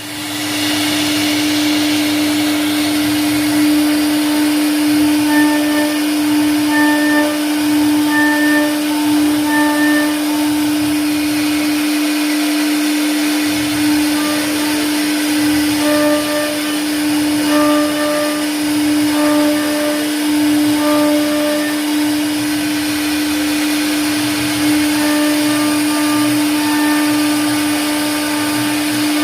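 CNC router spindle running steadily as it carves wood, giving a constant hum over a cutting hiss, with short higher tones coming and going.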